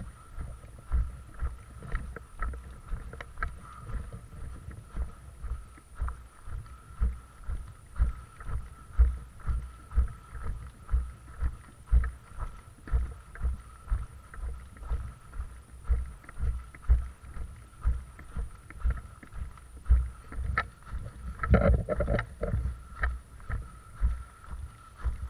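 Footsteps of the player wearing the camera, walking at about two steps a second, each step a low thud. There is a brief rustle a little after 21 seconds in.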